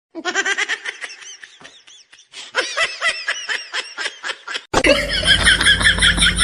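A person laughing in quick, rapid bursts, then a cut about five seconds in to louder laughter over a low rumble.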